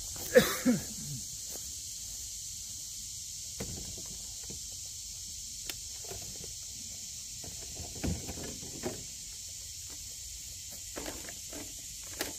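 A pair of knocks about half a second in, then scattered footsteps and light handling knocks, over a steady high drone of evening insects.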